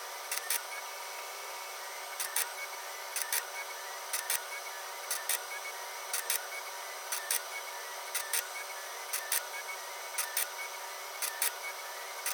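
Desktop robotic forming rig (robot arm and motorised arbor press) running an automated forming cycle: a steady motor hum and hiss with paired sharp clicks repeating about once a second.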